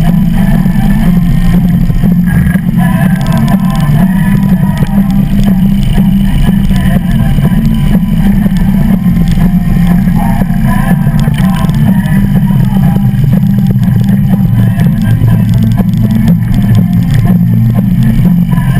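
Harley-Davidson V-twin engine running steadily as the motorcycle creeps through slow traffic, heard up close from the bike.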